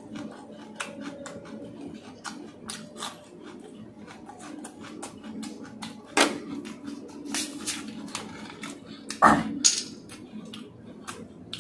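Close-up chewing and wet mouth-smacking sounds of someone eating noodles and samosa, a rapid run of small clicks. A few louder sudden sounds stand out about six seconds and nine to ten seconds in.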